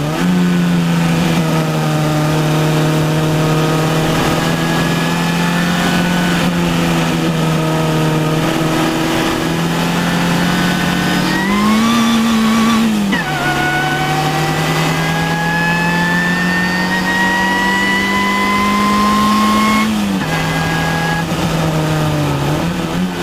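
Car engine running at high, steady revs under load, its pitch creeping slowly upward as the car gains speed. About halfway through the revs rise briefly and then drop, then climb slowly again, with a thin whine rising alongside.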